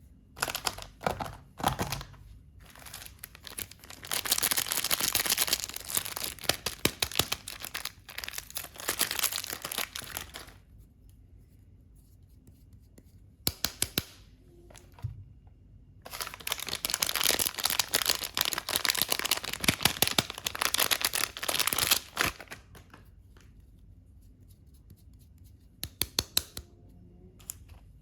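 Soap packaging being torn open and crinkled by hand, in two long stretches of dense crackling with a few short bursts and clicks between.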